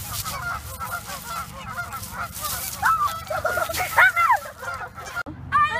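A flock of geese honking, many short calls overlapping, with a few louder honks around three to four seconds in. The sound cuts off suddenly just over five seconds in.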